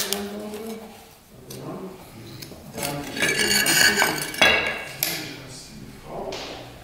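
Hand glass cutter scoring a replacement piece of glass to size along a metal straightedge, with light clinks and taps of metal on glass, the sharpest about four and a half seconds in.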